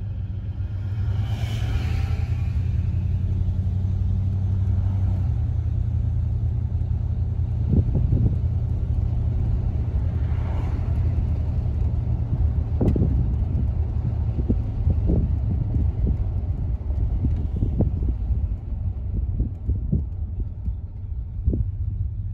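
Interior cabin sound of a 1966 Cadillac Fleetwood Brougham being driven: a steady low rumble of its 429 V8 and the road. The engine note changes about five seconds in, and a few light knocks come through later on.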